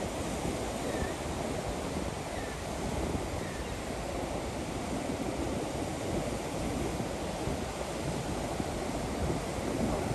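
Gulf surf and steady onshore wind on an open beach, with the wind buffeting the microphone.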